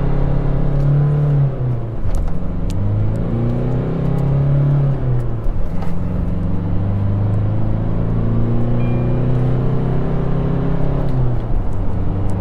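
Isuzu D-Max Hi-Lander's four-cylinder turbo-diesel engine heard from inside the cabin on the move, with road noise beneath it. Its note drops about a second and a half in, climbs and drops again about five seconds in, then holds fairly steady until it falls away near the end.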